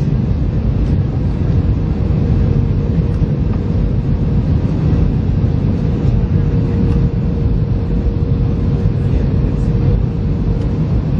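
Jet airliners in flight on approach: a steady low rumble with a faint, constant whine above it.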